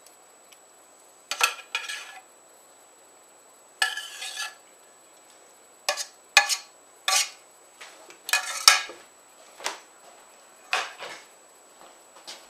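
A metal spoon scraping and clinking against a stainless steel pan and a plate as curry is spooned out of the pan. The sound comes in short separate bursts with brief quiet gaps.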